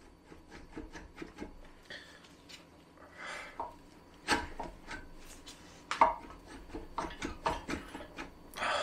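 Jaguar 4.2 XK aluminium cylinder head being rocked and eased up its studs off the block: a run of irregular small metal clicks and knocks with rubbing scrapes, the sharpest knocks about four and six seconds in. The head is nearly free but still binding on the studs.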